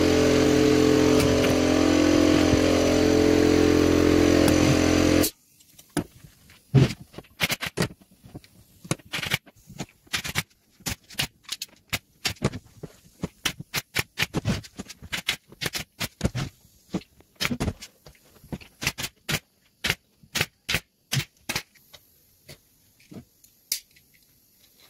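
A machine running steadily for about five seconds, then cutting off suddenly, followed by many irregular sharp taps and knocks.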